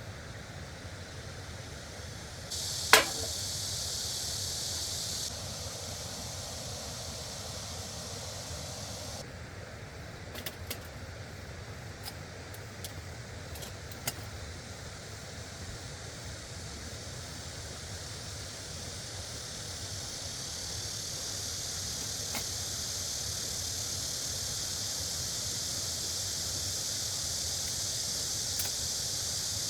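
Steady rushing of a stream, with one sharp click about three seconds in and a few faint ticks around ten to fourteen seconds in.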